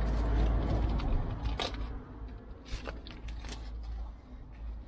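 Handling new brake pads: a rustling of packaging and gloves, then a few sharp clicks and scrapes as the metal-backed pads are handled and one is set down on gravel.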